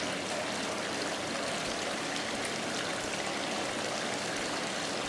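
Running water flowing steadily, an even rushing hiss with no breaks.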